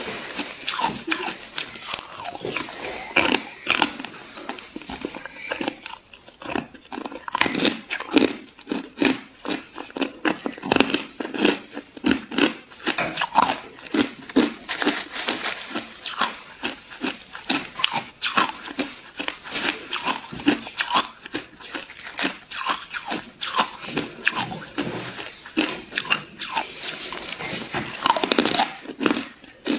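Hard clear ice being bitten and chewed: a continuous run of sharp cracks and crunches.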